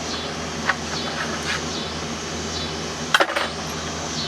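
Metal hand tools clinking against metal while loosening nuts: a few light clinks, then a quick cluster of clinks about three seconds in, over a steady low hum.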